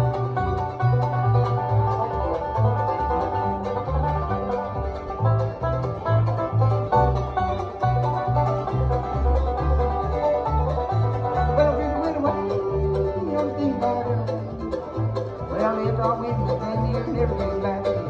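Live bluegrass band playing an instrumental stretch: banjo picking over an upright bass line in steady, stepping notes, with a mandolin.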